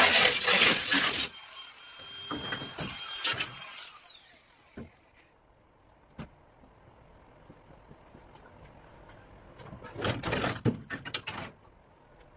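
A power cutting tool cutting the rusted sheet-metal floor pan of a 1963 International Scout, stopping abruptly about a second in; a brief second burst follows and the tool winds down with a falling whine. Near the end, a cluster of sharp metal clanks and knocks.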